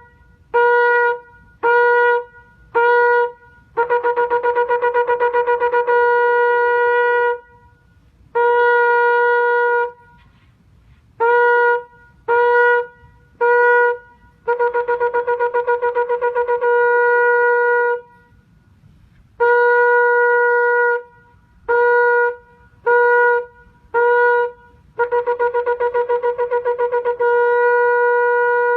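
Ram's-horn shofar blown in a repeating call pattern: three short blasts, then a run of rapid staccato notes that runs into a held note, then a single long blast. The cycle comes round about three times, ending on a long note.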